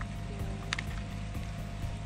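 Soft background music over a low, steady rumble, with one short tick about a third of the way in.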